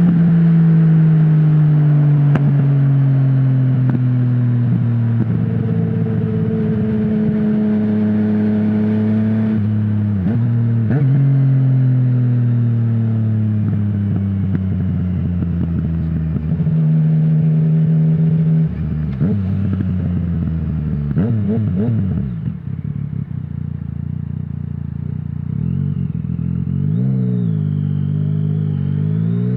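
Yamaha MT-09's three-cylinder engine through a full Akrapovic exhaust with no dB killer, slowing on engine braking with the revs falling steadily. About ten seconds in the revs jump up as it shifts down, then fall again, and near the end they dip and pick back up.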